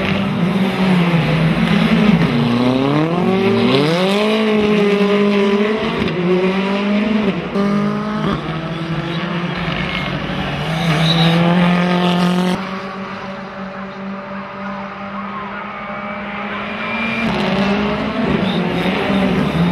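Rally car engine revving hard as it accelerates, pitch climbing in steps through the gears, then easing off with a drop in level about two-thirds of the way through, before it picks up again near the end.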